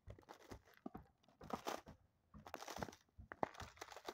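Footsteps crunching through a thick layer of ice pellets covering the ground, four steps about a second apart.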